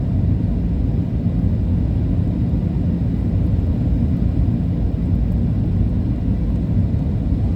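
Steady cabin rumble of a Boeing 737-800 in flight, its CFM56 engines and airflow heard inside the cabin as an even low drone.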